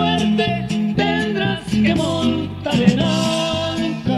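Recorded norteño band music: accordion and guitar over bass and a steady beat.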